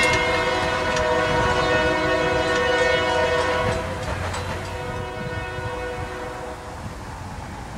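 Diesel locomotive air horn sounding a long, steady chord as the train approaches a grade crossing, a crossing warning, over the train's rumble. It cuts off about four seconds in, and a second, quieter horn blast follows.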